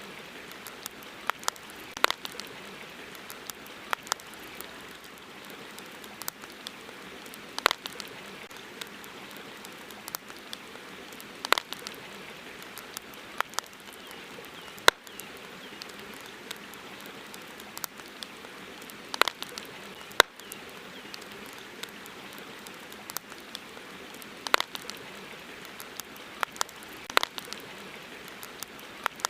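Campfire crackling: sharp, irregular pops and snaps from the burning wood over a steady background hiss.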